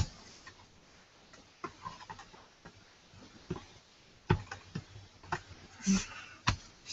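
Scattered clicks and taps of hands handling and prying at a finned metal mini-PC case, trying to lift a cover that is stuck tight. The clicks are sparse at first and come more often from a little past the middle.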